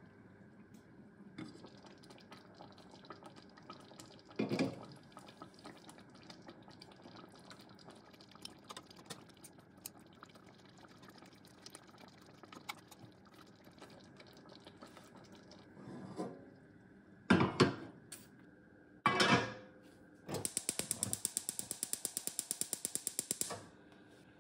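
Tomato curry sauce simmering in a stainless steel saucepan, a faint steady bubbling with small pops. It is broken by a few loud knocks of metal cookware, about 4 s in and three more between 16 and 19 s. Near the end comes a rapid run of sharp clicks, about nine a second, for roughly three seconds.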